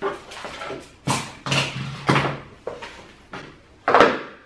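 Handling noise of objects being moved and set down on a wooden table: about half a dozen irregular knocks and rattles.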